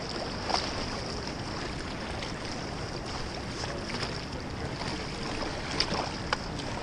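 Steady wash of flowing river water with wind on the microphone, broken by a few short sharp ticks, one about half a second in and two close together near the end.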